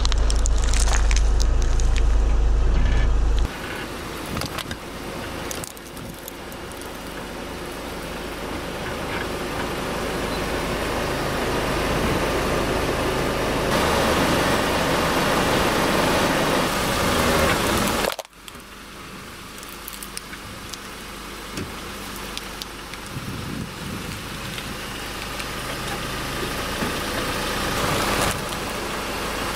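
A car running close by while its tyre rolls over and crushes foil cups, with crackling crunches in the first few seconds over a deep engine rumble. After that comes a steady car noise that slowly grows louder, cuts off abruptly about 18 seconds in, and builds again.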